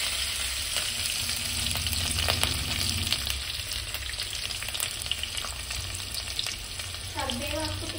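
Chopped onion, green chillies and curry leaves sizzling steadily in hot oil in an aluminium kadai, with a few light clicks from stirring.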